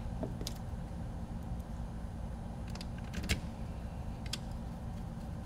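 A few sharp, light clicks and taps of small screws and plastic parts being handled and set in place on the opened case of a radio transmitter, the loudest about three seconds in, over a steady low hum.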